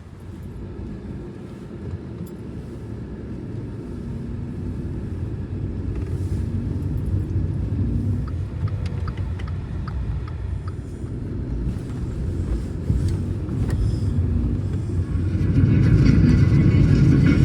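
Car on the move, with steady low road and engine rumble that grows gradually louder and jumps up near the end.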